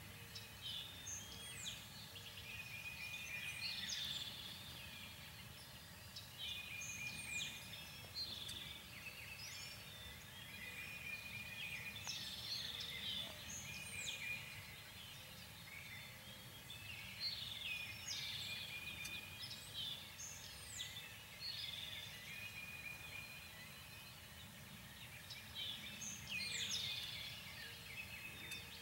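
Wild birds calling outdoors: high chirps, quick downward-sweeping notes and short trills repeat every second or two over a faint steady background hiss.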